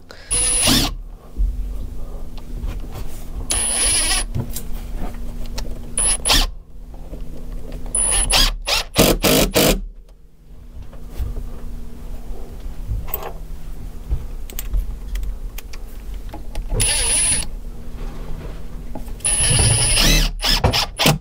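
Cordless drill running in several short bursts, each with a high motor whine, as it drives screws and bores holes into a wooden packer on a boat's frame.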